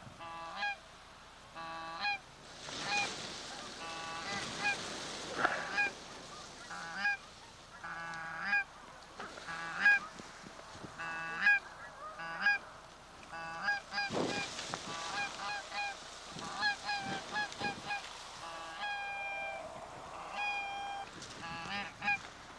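Canada geese honking: many short honks, some in quick runs, all through. A rushing noise rises and fades twice, a few seconds in and again around the middle.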